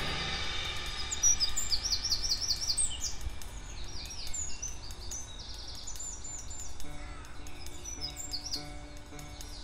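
Small songbirds singing repeated runs of quick, high chirping notes over a low steady rumble. Low sustained music notes come in about seven seconds in.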